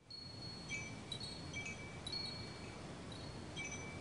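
Wind chimes ringing: light metal tones struck irregularly, about one or two a second, over a low rumble. The sound cuts in suddenly at the very start.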